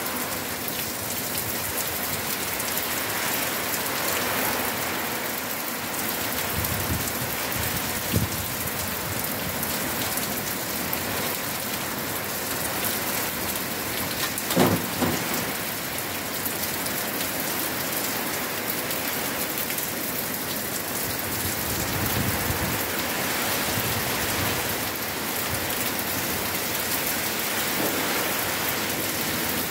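Heavy tropical-storm rain pouring steadily. Low rumbles come and go. There is a brief thump about eight seconds in and a louder one about fifteen seconds in.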